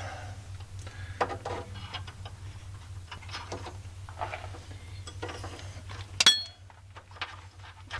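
Light metallic clinks and scrapes of a bent metal bracket plate being fitted over bolt heads, with one sharp ringing clink about six seconds in.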